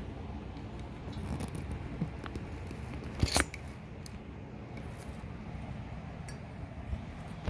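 Handling noise of a smartphone being lifted off its holder and moved about: rubbing and scattered small clicks, with one louder knock a little over three seconds in.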